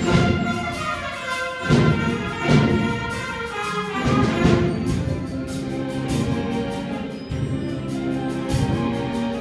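High school concert band playing a Christmas arrangement: sustained brass and woodwind chords, with a few loud accented hits in the first half.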